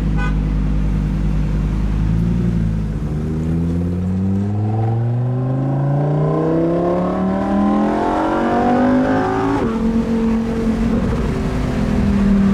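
Lamborghini Huracán Performante Spyder's V10 engine running steadily, then accelerating with its pitch climbing for about six seconds. The revs drop suddenly, then hold steady at a lower pitch.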